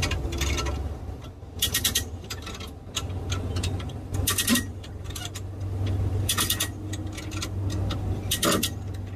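A ratchet clicking in short quick runs about every two seconds as it draws up the pulling chain, over a steady low hum.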